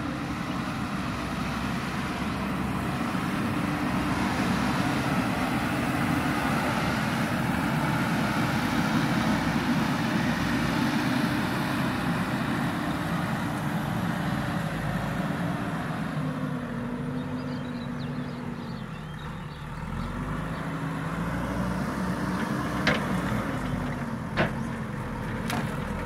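JCB backhoe loader's diesel engine running as the machine works, its pitch rising and falling with the load and easing off briefly about three-quarters of the way through. A few sharp knocks come near the end.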